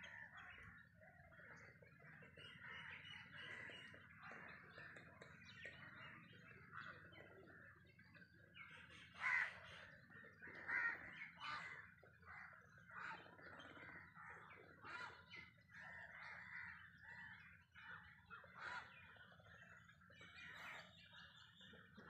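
Faint chorus of many birds calling at once from a nesting colony, overlapping calls running on without a break, with two louder calls about nine and eleven seconds in.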